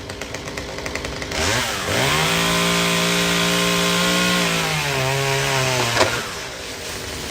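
Two-stroke chainsaw idling with a rapid, even popping, then revved up about a second and a half in and held steady at high throttle for a few seconds. It eases down and drops back toward idle near six seconds, where a single sharp crack is heard.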